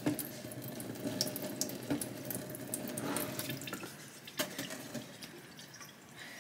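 Water running and trickling into a sink, with a few small drips and knocks, slowly tapering off.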